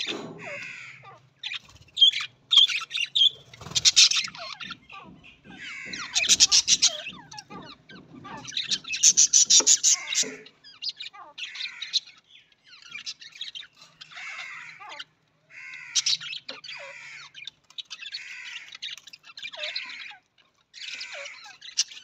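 A group of budgerigars chattering, with bursts of fast warbling chirps every second or two, loudest in the first half.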